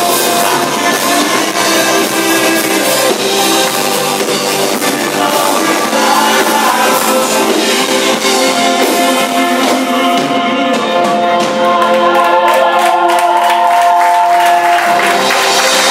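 Live rock band playing loud, with singing over drums and instruments; long held notes ring out in the second half.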